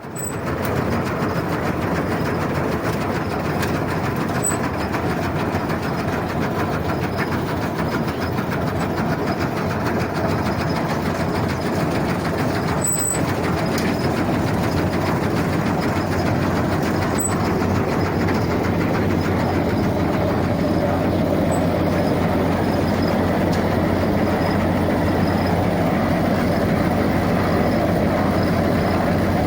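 New Holland 8070 combine harvester running steadily on its first run after repairs, with a slight change in tone about two-thirds of the way through.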